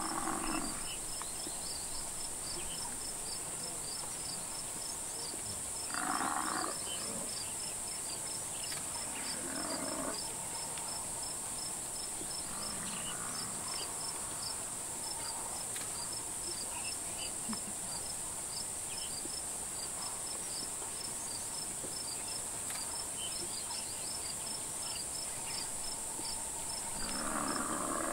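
Crickets and other insects chirping steadily, a high hiss with a regular ticking over it. Lions and a buffalo locked in a kill give short growls and bellows, about six seconds in, again about ten seconds in, and louder near the end.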